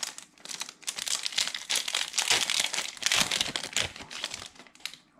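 Plastic trading-card pack wrapper crinkling and crackling in the hands in dense, irregular bursts, busiest through the middle and dying away near the end.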